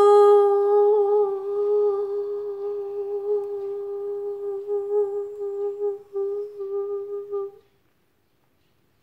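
A voice holding one long vocal 'Oh' on a steady pitch for about seven and a half seconds, with a short dip near six seconds before it stops.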